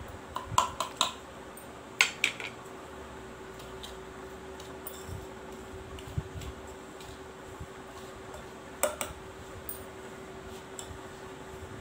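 A measuring cup and wire whisk knocking and clinking against a stainless-steel mixing bowl as flour is tipped in and worked through by hand: a cluster of sharp knocks in the first couple of seconds and one more near the end, over a steady low hum.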